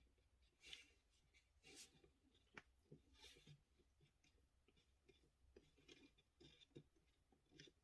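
Near silence with faint scattered small clicks and light scratching sounds.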